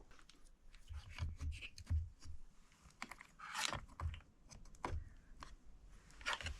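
Irregular light clicks, taps and a few short scrapes from handling wire ends and small insulated terminals at close range.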